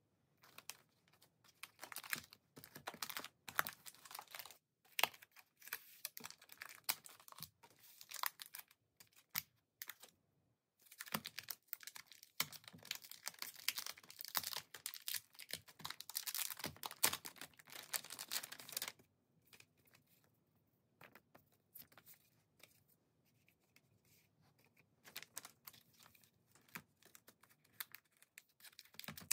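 Glossy plastic album pouches crinkling and crackling as tape on them is picked at and peeled off, in uneven runs of sharp crackles with a dense stretch in the middle and a sparser, quieter patch later on.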